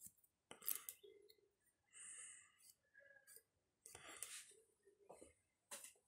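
Faint, scattered small clicks and a soft brushing sound as a laptop RAM module is handled and its contacts are wiped with an alcohol-soaked cotton swab.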